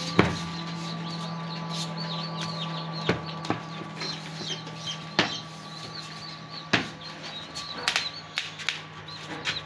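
Newly hatched chicken chicks peeping: many short, high, falling peeps, over a steady low hum and a few sharp knocks.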